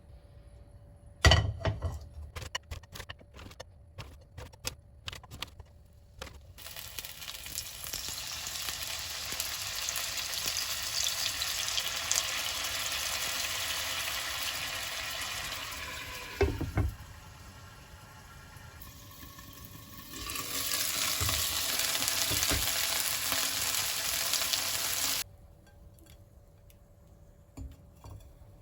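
Food sizzling as it fries in a pan, after a few clicks and knocks. The sizzle dips briefly after a knock in the middle, comes back louder and cuts off suddenly near the end.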